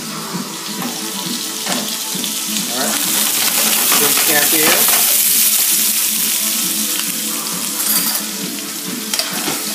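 Floured shrimp searing in hot olive oil in a frying pan, a steady loud sizzle that swells a few seconds in and then eases a little.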